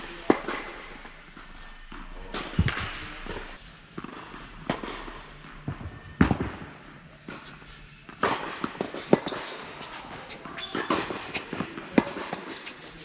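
Tennis rally on an indoor court: the ball is struck by rackets and bounces, with a sharp hit every couple of seconds ringing in the hall, and smaller clicks and knocks between the hits.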